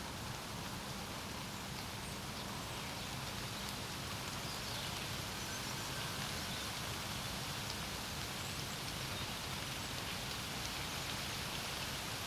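Steady wind over a lake: a continuous rustling hiss with a low rumble, and a few faint bird chirps.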